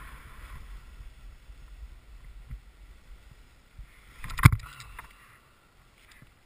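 Snowboard sliding over packed snow, a scraping hiss that fades early as the rider slows to a stop. About four and a half seconds in, a sharp thump as the rider sits down in the snow.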